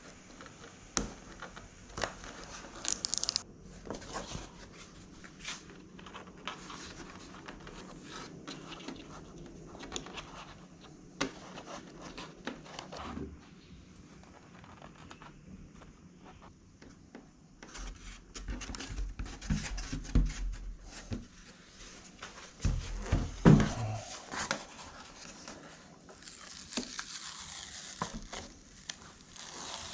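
A razor blade scoring the paper backing of an adhesive foam marine mat, with irregular scratchy ticks as it cuts, plus crinkling and tearing of the backing paper. A busier stretch of louder handling knocks and rustles comes about two-thirds of the way through.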